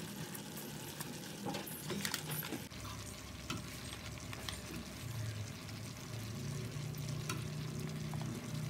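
Chopped onion, capsicum and tomato sizzling softly in an aluminium kadai on a low flame, with a few light clicks of metal utensils in the first few seconds. A low hum comes in about five seconds in.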